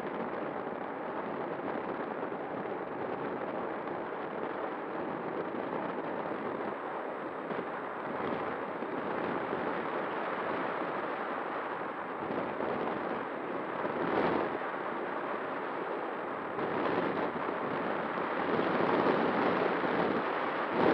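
Airflow rushing and buffeting over the onboard camera microphone of a flying FPV model plane, with a faint steady hum from its electric motor and propeller. The rush swells louder briefly about two-thirds through and again near the end.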